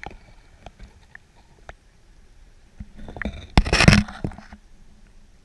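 Water and handling noise on a submerged action camera: faint scattered clicks and knocks, then a loud rush of water lasting about half a second, about three and a half seconds in.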